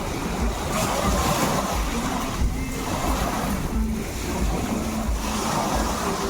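Sea surf washing in repeated surges, with wind rumbling on the microphone.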